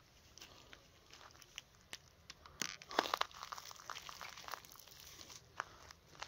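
Faint, irregular crunching and crackling of dry leaves and twigs underfoot, with a louder cluster about three seconds in.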